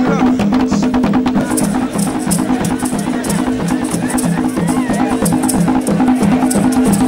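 Traditional Makishi dance music: drums beating a steady repeating rhythm, with a regular high rattle and voices singing over it.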